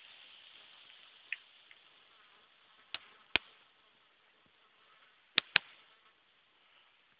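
Faint, steady buzzing of insects in a summer meadow, broken by four sharp clicks in two close pairs, about three seconds in and again about five and a half seconds in.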